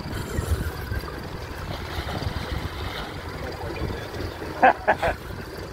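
Steady low wind and boat noise on open water, buffeting the microphone. A couple of brief vocal sounds come near the end.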